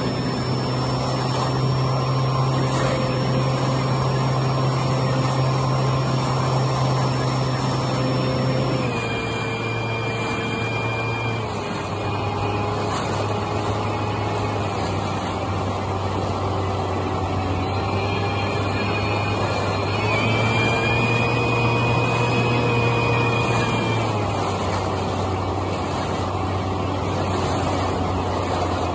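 RC airplane's motor and propeller running steadily, with a thin high whine over the drone. The pitch steps down about nine seconds in and again around twelve, rises around twenty seconds and falls back around twenty-four as the throttle changes in flight.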